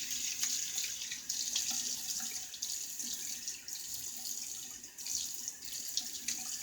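Water running from a tap into a bathroom sink, a steady hiss broken by small irregular splashes as the water is used for rinsing.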